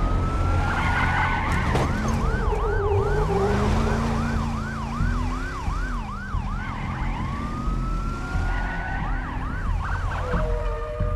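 Police siren on an armored SWAT truck: a rising wail that switches to a fast yelp of about two to three sweeps a second, back to a wail, then a short yelp again near the end, over a low engine rumble.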